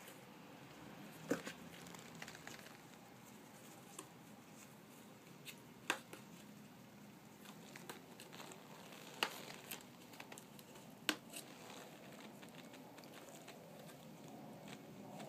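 Kittens scrabbling and wrestling in a cardboard box: faint rustling and scratching on the cardboard, with four sharp taps spread through.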